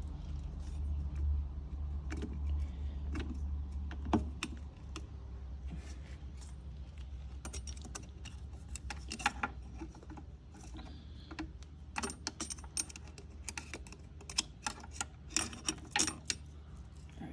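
Steel transmission parts (gears, washers, bearings and bushings from a 4T65E-HD automatic transaxle) clinking and clattering as they are handled, with a sharp knock about four seconds in and a quick run of clinks near the end. A low hum sits underneath, strongest in the first few seconds.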